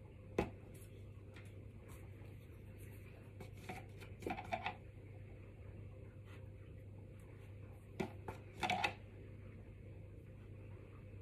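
Small handling sounds: a sharp click about half a second in, then light clustered taps and rustles around four and eight seconds in, as lollipop sticks are dipped in a cup of melted chocolate and pushed into cake pops over baking paper. A steady low hum runs underneath.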